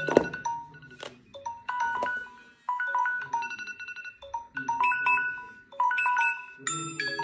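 Phone alarm tones from several smartphones and a tablet ringing at once: bright electronic melodies repeating in short phrases about once a second. There is a sharp tap near the start, and another, chime-like alarm tone joins near the end.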